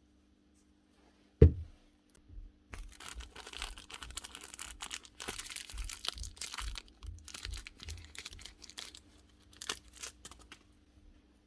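One sharp, loud thud about a second and a half in, then several seconds of irregular crinkling and rustling, like material being handled, over a faint steady hum.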